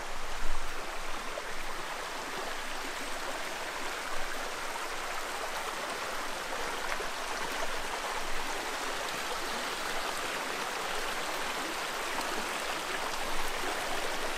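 A small, shallow stream running steadily over stones, with a brief bump just after the start.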